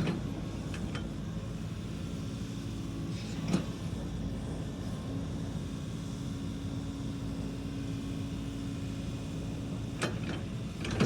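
A car running: a steady low hum with a constant tone, broken by a few short clicks, one about three and a half seconds in and several near the end.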